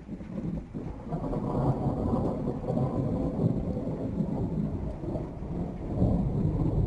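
Thunder rumbling, a long low roll that keeps going for several seconds and swells again near the end.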